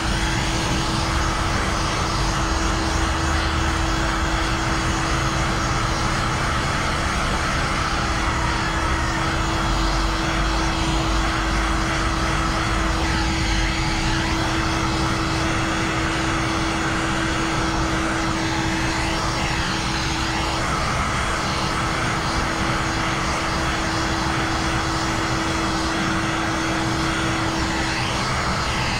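Electric heat gun running steadily, its fan blowing with a constant motor hum, while it heat-shrinks ceramic tint film onto a car's rear window. The hum breaks briefly about two-thirds of the way through and stops near the end.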